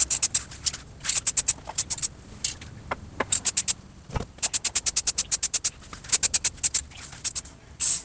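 Aerosol can spraying black paint, heard as runs of rapid, short hissing spurts with brief pauses between runs. A single dull knock about four seconds in.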